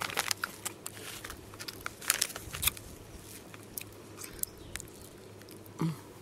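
Popping candy crackling in the mouth: irregular sharp pops and clicks, the loudest about two to three seconds in, with a short closed-mouth 'mm' near the end.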